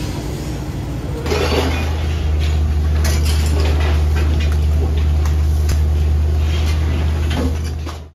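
A brief crowd murmur, then a loud, steady low rumble of a running engine, with scattered clinks and clatter of metal and glass debris; it fades out near the end.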